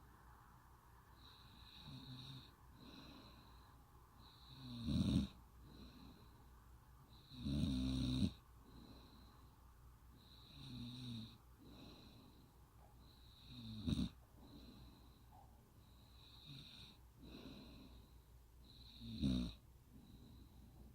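A woman snoring, one rough snore about every three seconds with breathy sounds between. Some snores are much louder than others.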